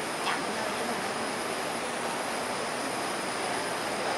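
Steady background hiss with a faint high-pitched whine running through it.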